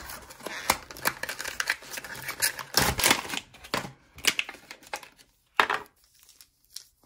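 Unboxing noises: a cardboard puzzle box being opened and a puzzle cube pulled out of crinkling plastic wrap, a quick run of rustles and small clicks that thins out after about four seconds.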